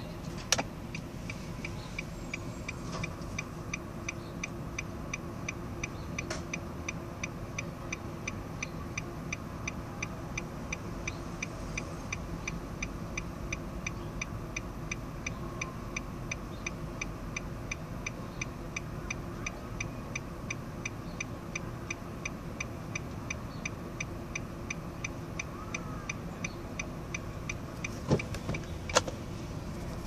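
Car turn-signal flasher ticking in a steady, even rhythm while the engine idles underneath. The stalk clicks loudly into place about half a second in, and near the end two louder clicks come as the stalk is pushed back to cancel the signal, and the ticking stops.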